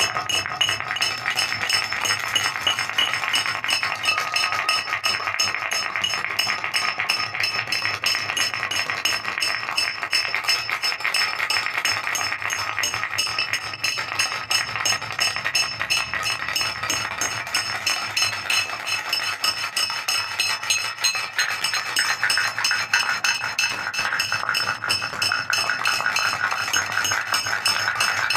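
Horror-film sound design: a dense, unbroken stream of rapid clicks and ticks, with a few steady high tones running through it.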